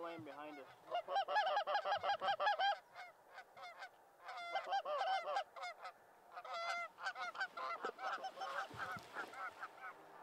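Rapid series of goose honks and clucks, several short notes a second, coming in three loud bursts.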